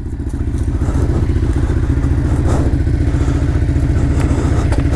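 Motorcycle engine running steadily at low revs, an even close-up pulse with no revving.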